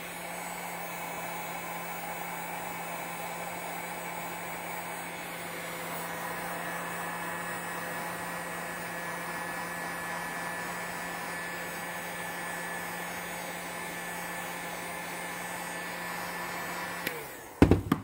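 Electric heat gun running steadily, a fan hum with a hiss of blown air; it spins up at the start and winds down with falling pitch about a second before the end. A couple of sharp knocks follow near the end.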